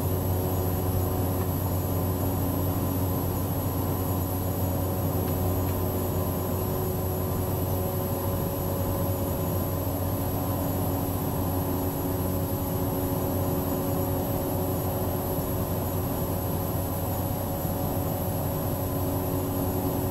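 Cessna 208B Grand Caravan's Pratt & Whitney Canada PT6A turboprop and propeller running steadily in flight, heard inside the cockpit as a constant low drone with a thin high whine above it.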